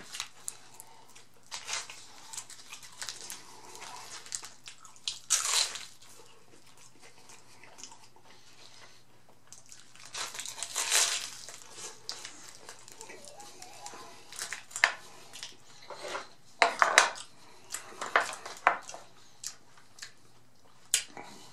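Bites into a large, hard, fried taco shell crunching and crackling, then chewing, in irregular bursts a few seconds apart with quieter stretches between.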